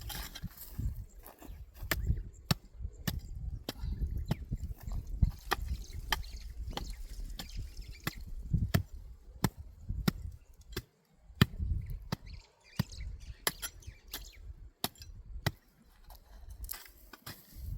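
Hand tool chopping and scraping as topsoil is mixed with manure: many sharp, irregular strikes over a low rumble.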